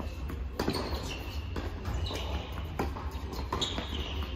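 Tennis rally on an indoor hard court: sharp pops of racket strings hitting the ball and the ball bouncing, about one a second, with sneakers squeaking on the court between shots.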